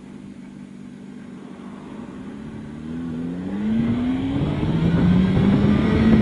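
Honda CBR600RR sport bike engine pulling away from a steady cruise: its pitch rises, drops at an upshift about four and a half seconds in, then rises again. The sound grows much louder from about three seconds in as the bike speeds up.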